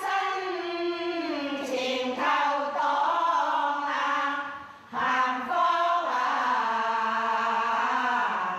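A group of women singing a traditional Tanka fishing-people song together, set to new lyrics praising the Communist Party. Two long sung phrases, with a short break a little past halfway.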